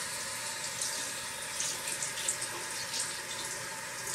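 Water running steadily from a tap into a sink as an emptied compact powder case is rinsed of leftover powder.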